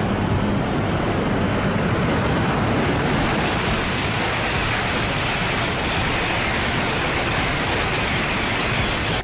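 E5 and E6 series Shinkansen high-speed trains passing through a station at speed: a steady rushing noise.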